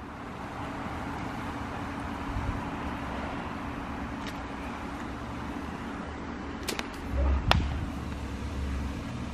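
Steady outdoor background noise with a faint low hum. About two-thirds of the way in come a few sharp clicks and a brief low rumble.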